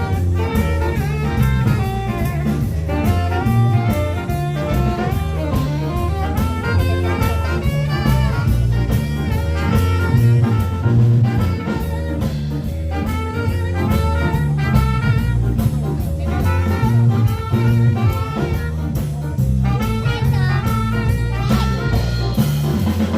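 Background music: an up-tempo jazz tune with horns and drum kit, quick melodic notes over a steady beat.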